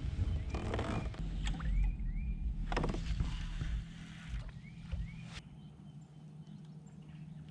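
Handling noise aboard a fishing kayak on the water: several sharp knocks and clunks against the hull. A low steady hum runs from about a second in until about four seconds, and a few short rising chirps are heard.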